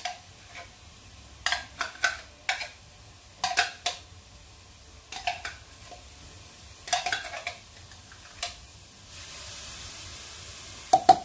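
A metal spoon clinking and scraping against a cooking pan in short bursts every second or two, stirring onion and garlic as they sauté. Near the end a steady sizzle rises for about two seconds, followed by a loud clatter of metal on the pan.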